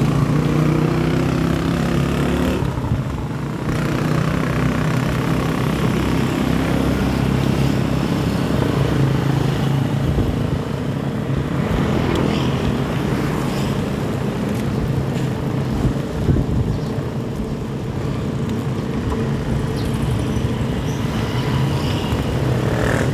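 Street traffic: motorcycle and motorcycle-tricycle engines running steadily along the road, with a pitched engine hum clearest in the first couple of seconds.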